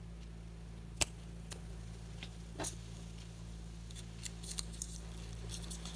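A small folded paper slip handled and unfolded by fingers: a sharp tap about a second in, then faint crinkling and rustling of the paper, busier near the end.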